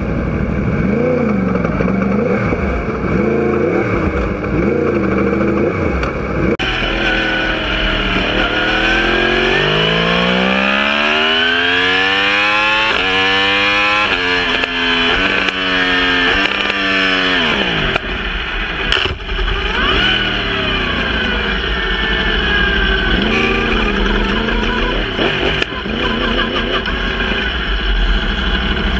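2018 Yamaha R1's crossplane inline-four engine running at speed on track, with steady wind rush over an onboard microphone. About eight seconds in it revs up hard through a run of quick upshifts, each one a step in pitch. Near eighteen seconds the pitch falls as it rolls off, and it stays at mid revs to the end.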